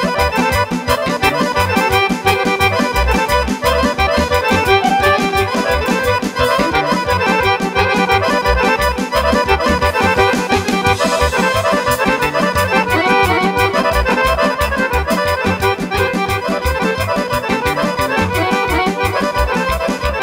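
Piano accordion playing a fast Vlach folk dance tune live, over a steady, even beat.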